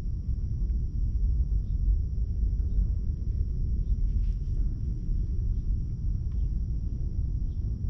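Wind buffeting the camera's microphone outdoors: a steady, unsteady-edged low rumble.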